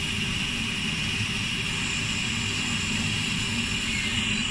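Commercial gas-heated popcorn machine running steadily: a low rumble with a steady high whine, its stirrer turning in the heating oil with no popping yet.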